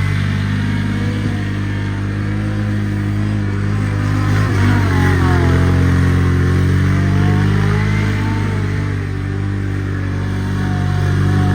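Vehicle engine running steadily, with a whining tone that dips and then climbs back in pitch in the middle.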